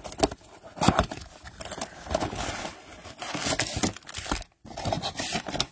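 Cardboard trading-card box being torn open by hand: irregular tearing and scraping of cardboard, with sharp clicks and knocks as the box is handled.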